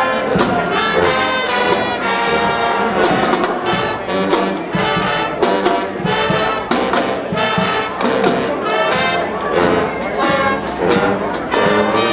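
A marching band's brass section, sousaphones among the horns, playing a lively tune together in short, punchy notes.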